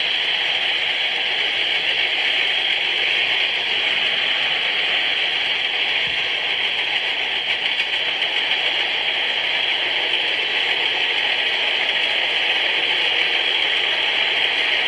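A freight train's cars rolling steadily past: a continuous, even rush of wheels on rail.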